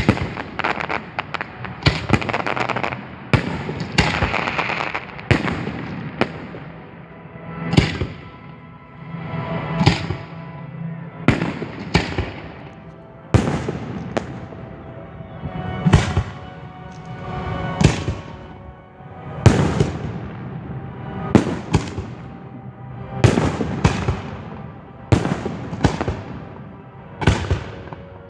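Professional display fireworks going off close up: a dense, rapid run of crackling bangs for the first five or six seconds, then single loud booms about every one to two seconds, each trailing off in a rumble.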